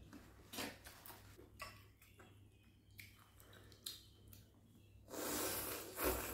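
Chewing with a few soft clicks of chopsticks against a glass bowl, then a loud slurp of rice noodles lasting about a second, starting about five seconds in.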